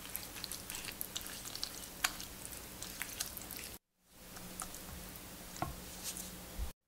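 Silicone spatula spreading and pressing a wet mix of grated zucchini and potato in beaten egg in a glass baking dish: soft squishing with scattered small clicks and taps. It drops out for a moment about four seconds in and again near the end.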